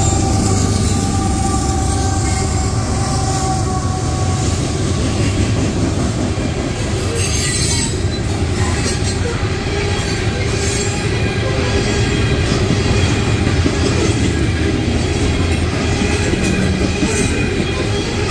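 Mid-train CSX diesel locomotives go past with a low engine rumble that eases over the first several seconds. Loaded coal hopper cars follow, rolling steadily by with continuous steel-wheel-on-rail noise and a few brief clicks and squeals from the wheels.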